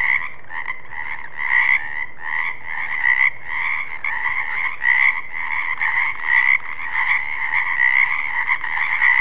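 Frogs croaking in a steady, unbroken run of calls that swells in a regular rhythm of about two pulses a second.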